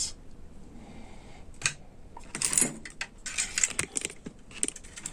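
Light clicks and rattles of small metal and plastic parts being handled, a scattering of short clatters that is busiest in the middle.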